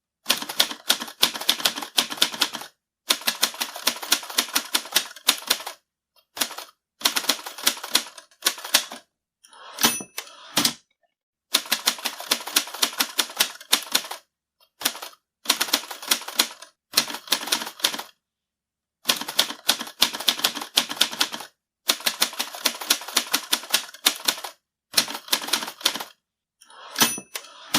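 Typewriter being typed on fast, in runs of rapid key strikes with short pauses between them. Twice a brief bell ring sounds, followed by a rattling clatter, the end-of-line bell and carriage return of a manual typewriter.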